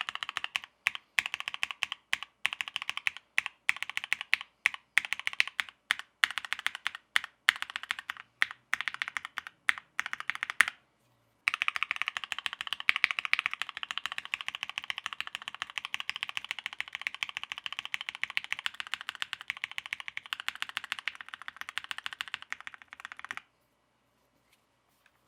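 Mechanical keyboard with an FR4 switch plate being typed on. The keys are struck one at a time for about ten seconds. After a brief pause comes fast, steady typing that stops about two seconds before the end.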